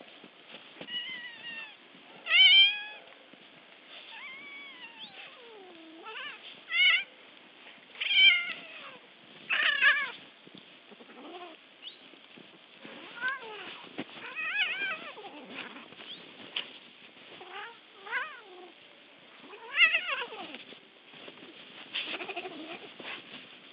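Tabby cat meowing and yowling over and over, a dozen or so drawn-out calls that rise and fall in pitch, while a big white dog mouths and pins it.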